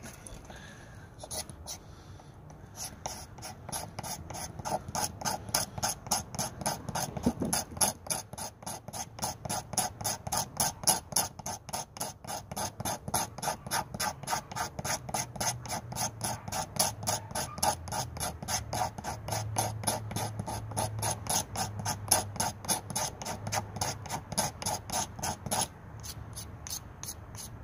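Swiss Army Camper pocketknife's large blade shaving wood in quick, even scraping strokes, about three a second, stopping near the end.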